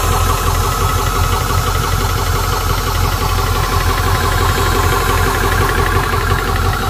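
VEVOR 4500 psi portable PCP compressor running under load, its piston pumping in a fast, steady chug with its cooling fans whirring at a steady pitch, as it pumps an air tank toward 250 bar.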